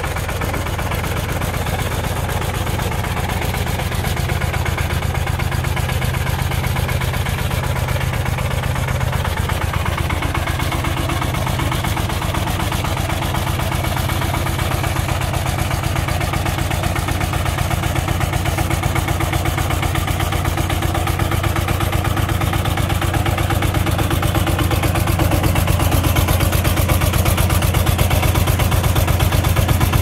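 Engine of a remote-control crawler tiller running steadily with a fast even firing pulse, getting somewhat louder over the last few seconds.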